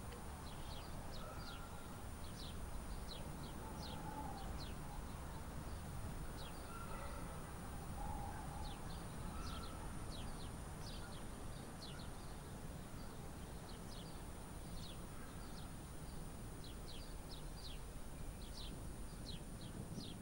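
Small birds chirping: many short, high chirps that drop quickly in pitch, coming in irregular clusters, with a few lower calls among them, over a steady low background rumble.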